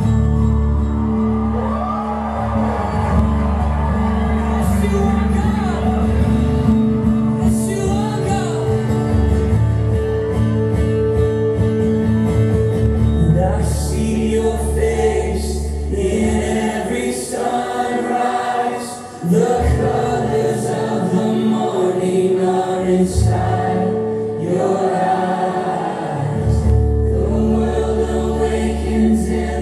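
Christian worship song: several voices singing together over sustained instrumental accompaniment.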